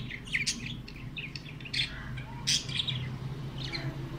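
Caged pet budgerigars chirping and chattering in many short, quick, high calls.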